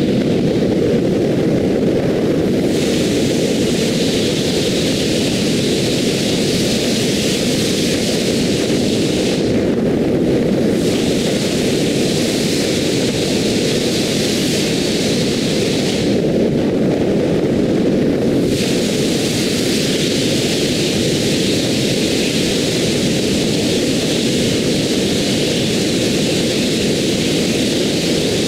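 Steady road and wind noise of a car cruising on an expressway, sped up four times. A higher hiss over it drops away twice for a second or two.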